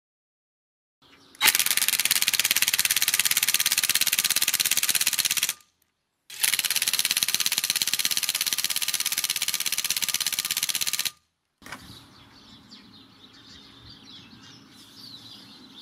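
Ryobi One+ 18 V cordless impact wrench hammering at speed 1 as it tightens a car wheel nut, in two runs of about four seconds each with a short break between. After it stops, birds chirp faintly.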